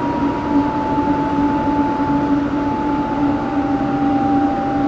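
Air forced through the sealed tunnel entrance door of an underground funicular, driven by the train moving in the tunnel, singing an uncanny song: a steady two-tone howl over a rushing hiss, the higher tone sliding slowly down in pitch.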